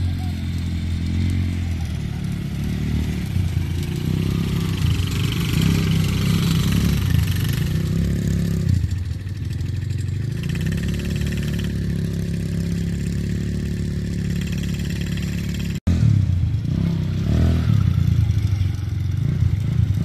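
Small youth ATV (quad bike) engine running as it is ridden over sand, a steady low drone that eases off briefly about nine seconds in. The sound cuts out for an instant about sixteen seconds in.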